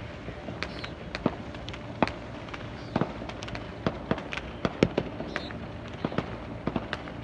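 Fireworks going off all around: many sharp, irregular bangs and pops, some loud and many fainter, with a few brief whistles.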